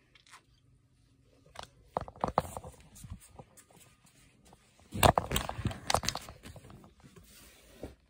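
Crackling, rustling handling noise with scattered clicks from a phone being moved about in the hand, loudest about five seconds in.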